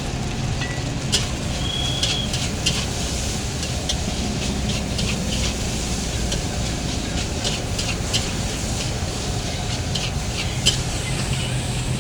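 Metal spatula scraping and clinking against a wok as fried rice is stir-fried over steady sizzling, with sharp irregular clicks every second or so.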